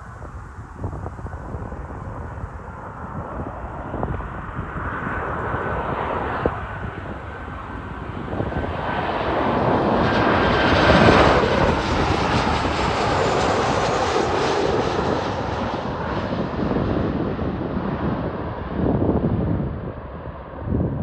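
Boeing 737-800 jet airliner on landing approach passing overhead: the noise of its CFM56-7B turbofan engines swells to a peak about halfway through, with a steady whine, then fades as the high end drops away.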